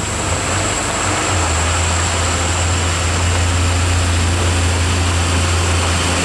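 Heavy truck's diesel engine running steadily close by: a deep, even drone with a faint steady high whine above it.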